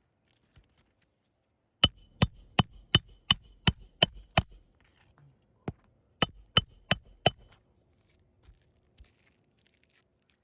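Hammer striking a metal roof snake to drive roofing nails under an asphalt shingle: a quick run of eight sharp blows at about three a second, a single blow, then four more, with a high metallic ring.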